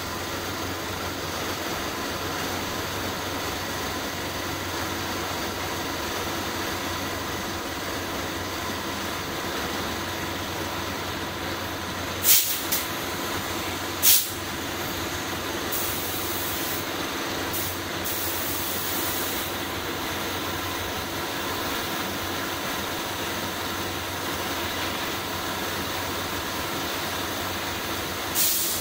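A steady machine hum, with short sharp hisses of compressed air from a gravity-feed paint spray gun twice a little before halfway, then several longer hisses of the gun spraying for a second or two at a time, and another short hiss near the end.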